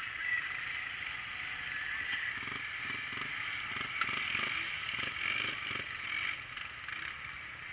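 Off-road side-by-side engines running, with a stretch of rhythmic pulsing in the middle.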